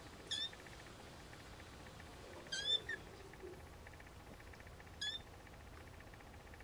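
Young Siamese snowshoe kittens mewing: three short, high-pitched mews, the middle one longer and doubled.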